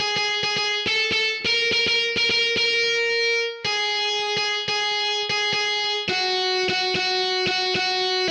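GarageBand's virtual electric guitar on the Hard Rock preset, with overdrive and flanger pedals, playing fast repeated picked notes, about five a second. The pitch moves to a new note every second or two, with a brief break a little past halfway.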